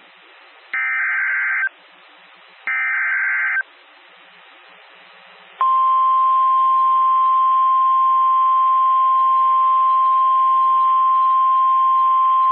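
Emergency Alert System SAME header on NOAA Weather Radio: two one-second bursts of rapid buzzing digital data, a second apart, that encode the severe thunderstorm warning. Faint radio hiss fills the gaps. About two seconds after the last burst, the steady 1050 Hz weather radio attention tone begins and holds, announcing the warning about to be read.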